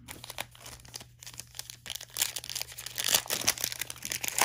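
Plastic trading-card pack wrappers crinkling and cards being handled by hand: a quick run of rustles and light ticks, busier in the second half.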